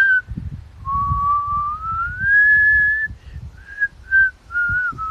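A man whistling: one long note that slides slowly upward, then a run of short notes that step back down. It is a demonstration of how a whistle sounds at this volume.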